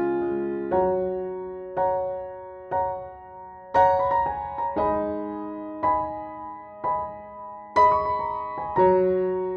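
Background music: slow, gentle piano or electric piano chords struck about once a second, each ringing out and fading.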